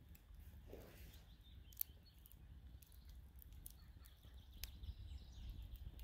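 Near silence: quiet outdoor ambience with a low rumble, faint bird chirps and a few small sharp clicks.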